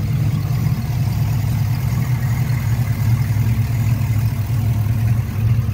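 An engine idling steadily, a low even rumble.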